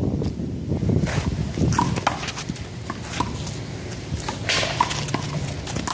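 One-wall handball rally: the small rubber ball smacking off hands, wall and court in a string of irregular sharp hits, with footsteps scuffing between them.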